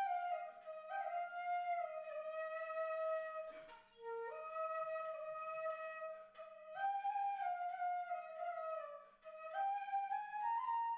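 Background music: a slow solo flute melody of long held notes that glide gently down in pitch, phrased in three parts with brief pauses about four and nine seconds in.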